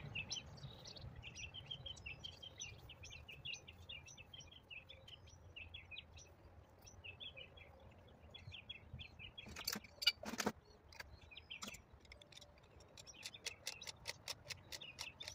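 Small birds chirping and twittering through the first part. About ten seconds in come a few sharp knocks, and near the end a fast run of clicks, about four or five a second, from a hand tool working the pump's wiring.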